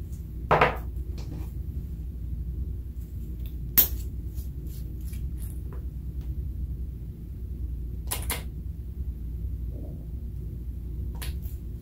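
Handling noise from a small glass bottle and its brush applicator being worked over a glass baking dish: a few sharp clicks and knocks, about half a second in, near four seconds and near eight seconds, over a steady low hum.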